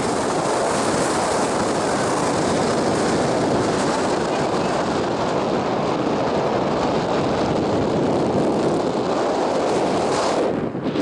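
Wind blowing hard across the microphone: a loud, steady rush of noise, briefly dropping away near the end.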